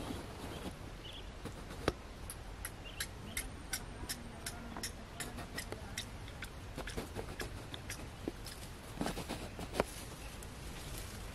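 Irregular run of quick, light clicks and ticks, several a second, over a steady outdoor background. A sharper knock comes about two seconds in, and a few fuller knocks come near the end.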